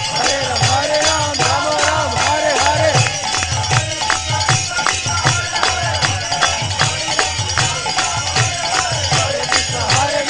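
Devotional kirtan music: a sung melody over rapidly struck hand cymbals and a drum keeping a steady beat.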